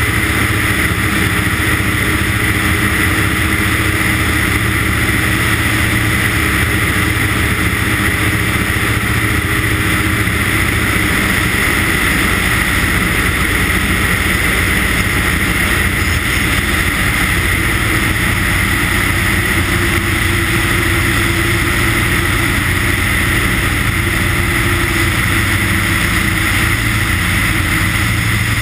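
Light ski-plane's piston engine and propeller running steadily in flight, heard from a camera mounted outside the airframe.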